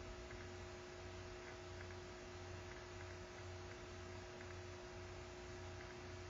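Faint steady electrical hum with two held tones and a slow low pulsing throb, over an even hiss.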